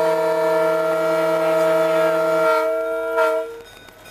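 The Nebraska Zephyr locomotive's two air horns, a Leslie A-200 and a Nathan Airchime S-2m, blown together as one loud chord, heard from the cab. The lowest note drops out about two and a half seconds in; the remaining notes are quilled briefly near the end, then the horn cuts off.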